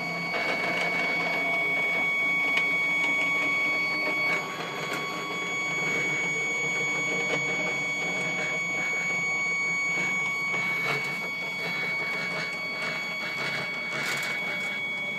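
Stepcraft 840 CNC stepper motor driving an axis carriage along its threaded lead screw, a steady high whine over a rough rattle that stops suddenly at the end. The owner takes the noise as a sign of problems in the drive, not the way the machine should sound.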